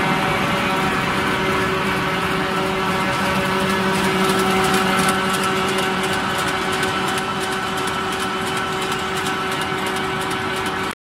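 Automatic-feed two-colour printer slotter machine for corrugated cartons, running: a steady mechanical din carrying several steady tones, with a fast patter of light clicks from about three seconds in.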